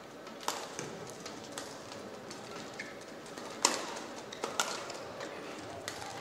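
Badminton rally: a shuttlecock struck back and forth by rackets as a string of sharp pops, roughly one a second, the loudest about three and a half seconds in, over a low steady arena background.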